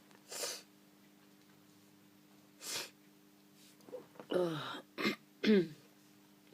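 A person with a head cold sneezing twice, about a second apart, near the end, each sneeze a sharp burst with a falling voiced "choo". Earlier come two short, breathy sniffs or breaths.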